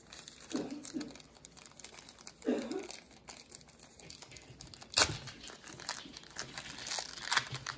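Plastic wrapper of a 1991 Pro Set football card pack crinkling and being torn open by hand, with the loudest sharp crackle about five seconds in.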